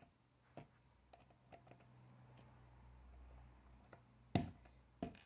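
Plastic K'nex rods and connectors clicking and tapping as they are handled and pushed together, a scatter of small clicks with a sharper snap about four seconds in and another just before the end.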